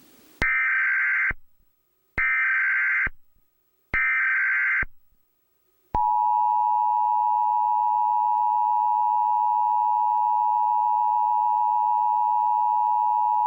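Emergency Alert System test tones: three one-second bursts of the SAME digital header data, then about six seconds in the long, steady two-tone EAS attention signal (853 and 960 Hz sounding together).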